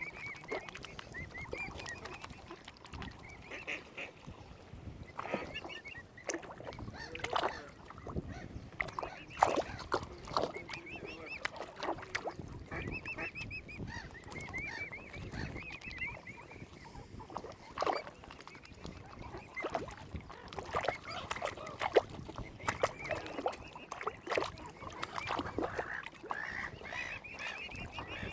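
Waterfowl calling over and over in runs of short, high, arching notes, with scattered sharp knocks between the calls.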